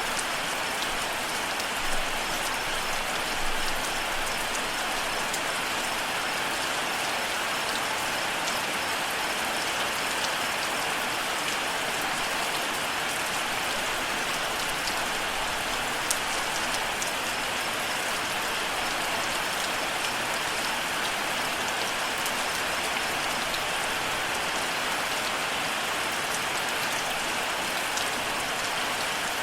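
Steady rain falling, an even hiss of drops with occasional sharper drip ticks.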